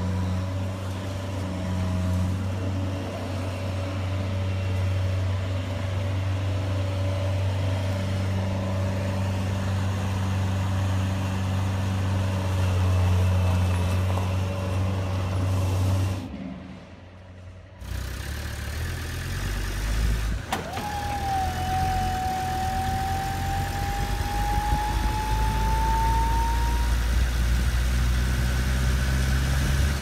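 Engine sound of toy RC construction vehicles: a low, steady engine hum for about sixteen seconds, a brief dip, then a second engine running with a slowly rising whine from about twenty seconds in.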